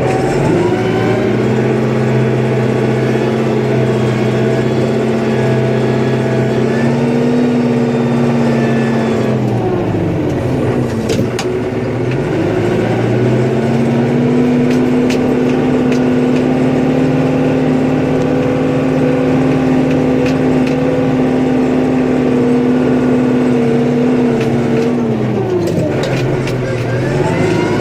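A snowplow vehicle's engine revs up and holds a steady high pitch under load. About ten seconds in it drops back, with a few light clicks, then revs up again and holds, and it drops once more near the end.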